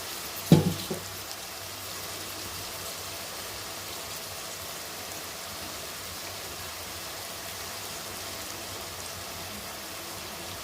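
Steady sizzling of sugar melting in hot oil in a pan with fried vegetables, nuts and whole spices, the sugar giving off water as it melts. A single sharp knock about half a second in.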